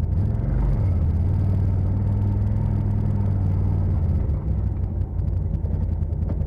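Side-by-side UTV engine running under way, a steady low drone that holds its pitch, then eases off about four seconds in.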